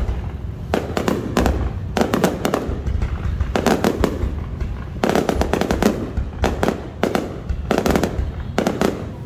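Aerial fireworks exploding: clusters of rapid sharp bangs and crackles about once a second over a continuous low rumble.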